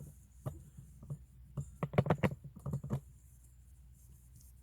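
A quick run of light taps and clicks, about a dozen close together about two seconds in, after a few single clicks.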